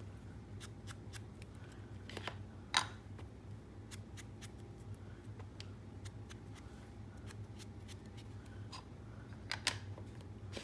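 Paper and small craft tools being handled at a table: scattered light clicks and rustles, with a louder sharp sound about two and a half seconds in and another near the end, over a low steady hum.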